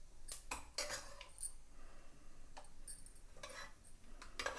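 A metal spoon clinking and scraping against a cooking pot, several irregular clinks.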